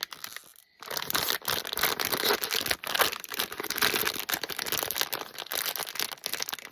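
Packaging being unwrapped by hand, crinkling and rustling in quick irregular crackles from about a second in.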